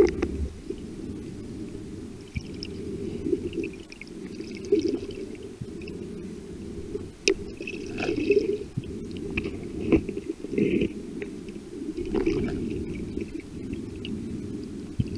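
Muffled underwater sound heard through a camera's waterproof housing: water sloshing and gurgling, with a few scattered sharp clicks.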